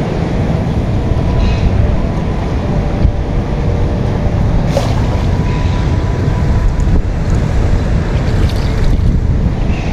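Wind buffeting the microphone outdoors: a steady, loud, low rumble.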